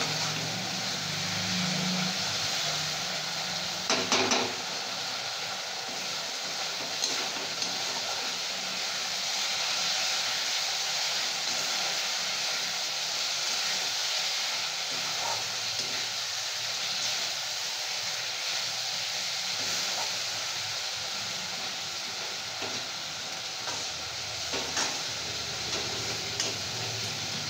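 Flat beans in mustard-seed paste sizzling steadily in a steel wok, with a metal spatula scraping and turning them now and then; the loudest scrape comes about four seconds in.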